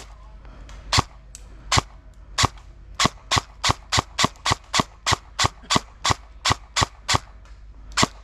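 Airsoft gun firing single shots as sharp cracks. A few spaced shots come first, then a steady run of about three a second, with a short pause near the end.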